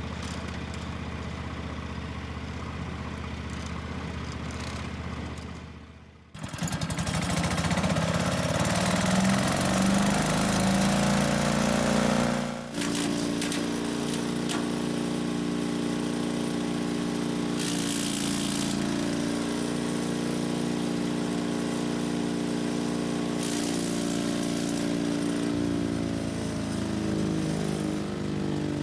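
Small gasoline engines running through several cut-together clips. A low, steady running sound fades out about six seconds in. An engine then runs at higher speed, and about halfway through it gives way to a steady running tone.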